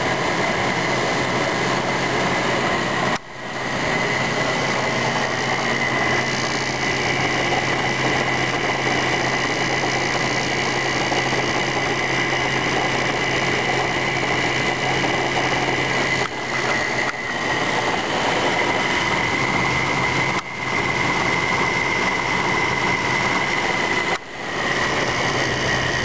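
Fedders A6X06F2A 6,000 BTU window air conditioner running with its compressor and high-speed fan on: a steady blowing hum with a thin, steady high whine. The whine is the fan motor, which still howls a little even after being oiled.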